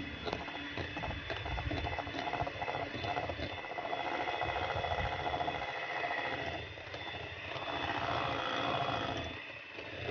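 Electric hand mixer running steadily, its motor whining as the twin beaters whip egg whites into a foam, with two brief dips in level.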